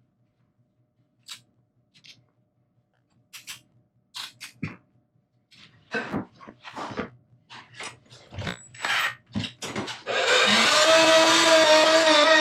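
Scattered knocks and clicks of workpieces and tools being handled, then about ten seconds in a power tool starts abruptly and runs loudly with a steady pitched hum.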